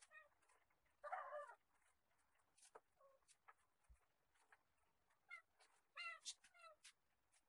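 A house cat meowing faintly several times in short calls that drop in pitch, most of them in the second half. A brief rasping noise comes about a second in, with scattered light clicks.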